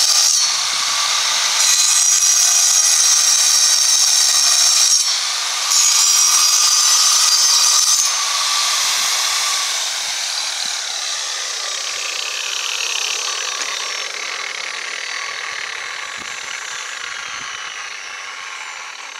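Large angle grinder cutting into a stone boulder: a loud, high whine that dips twice as the blade loads in the cut. About eight seconds in it stops cutting and slowly winds down, its pitch falling as it fades away.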